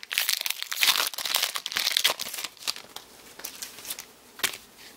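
Foil trading-card booster pack wrapper crinkling as it is handled and opened by hand: dense crinkling for the first two to three seconds, then a few scattered rustles and one sharp crinkle near the end.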